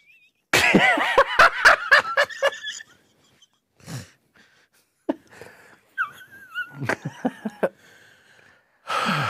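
A man laughing hard in loud, wheezing bursts for a couple of seconds, then breaking into scattered quieter laughs, and giving a long breathy exhale near the end.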